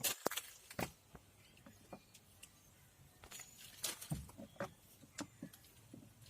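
Irregular light clicks and taps of a Maruti Suzuki Alto's plastic inner door pad and its fasteners being handled as the pad is refitted to the door.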